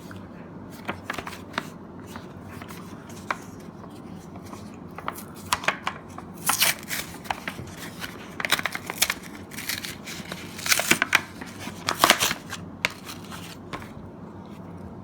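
Pokémon trading cards being handled and flipped through: a string of short clicks and brief card slides and snaps, busiest in the middle stretch and sparser near the end.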